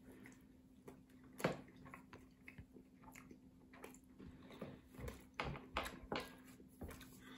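Faint chewing and mouth sounds of two people eating slices of fried fish sausage: soft, irregular smacks and small clicks, a few slightly louder ones about a second and a half in and again past the middle.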